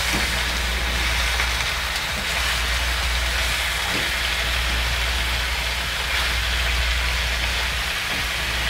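Chicken pieces sizzling steadily in hot oil in a frying pan as they are seared, with a few faint knocks as a fork turns them, over a steady low hum.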